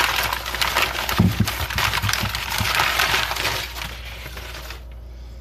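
Brown packing paper crinkling and rustling as a part is unwrapped from it, with a few dull knocks of handling about a second in; the crinkling stops near the end.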